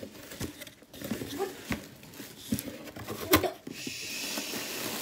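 Cardboard shipping box being opened by hand: scattered knocks and scrapes of the flaps, one sharp snap a little past three seconds, then a steady rustling from about four seconds in.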